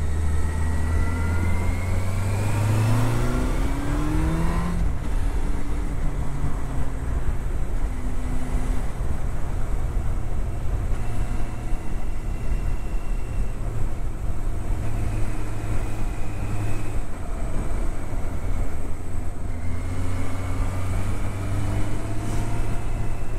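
Yamaha Fazer's inline-four engine accelerating, its pitch rising for about three seconds before dropping at a gear change, then pulling at steadier revs and climbing again near the end, with wind rush underneath.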